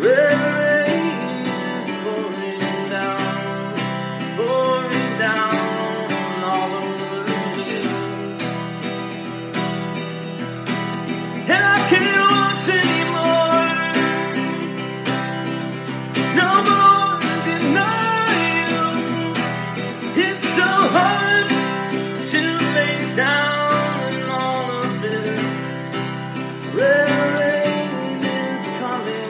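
Steel-string acoustic guitar strummed in steady chords, with a man singing over it in long, sliding phrases that come in several times.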